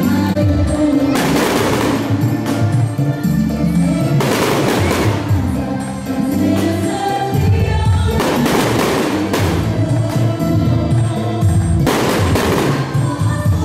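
Music with sustained notes and what sounds like a choir, over aerial fireworks. About five shell bursts go off, each with a crackling trail.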